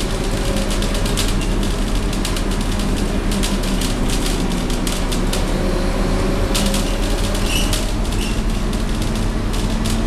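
Scania DC9 five-cylinder diesel engine of a city bus running under way, heard from inside the passenger cabin as a steady low drone. Frequent clicks and rattles from the bus body and fittings run over it.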